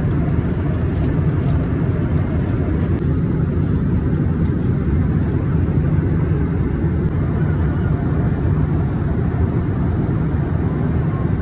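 Steady cabin noise of a Boeing 787 airliner in flight, heard inside the passenger cabin: an even, low rumble of engines and airflow.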